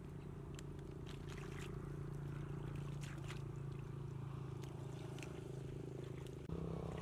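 A steady low motor drone, with light splashes and clicks from feet wading through shallow muddy water. The drone shifts abruptly near the end.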